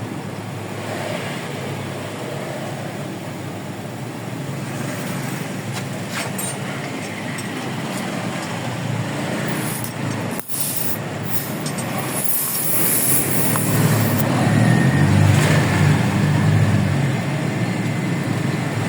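Steady road traffic and engine noise, swelling louder over the last few seconds as a vehicle engine comes nearer.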